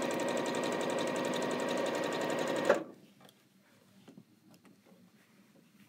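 Sewing machine stitching a quilt seam at a steady, fast rate, then stopping abruptly with a click nearly three seconds in. After that there are only faint scattered ticks.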